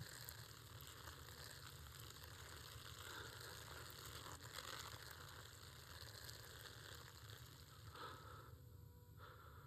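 Faint, steady hissing spatter of a small boy urinating onto the ground and leaves, stopping about eight and a half seconds in.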